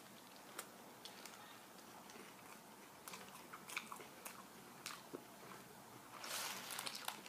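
Faint close-up chewing of a bitten-off mouthful of Subway wrap with lettuce: small wet clicks and crunches scattered throughout. A louder rustling hiss comes about six seconds in.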